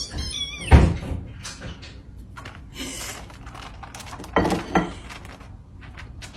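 A brief falling squeal, then a loud thump just under a second in, and two more knocks about four and a half seconds in.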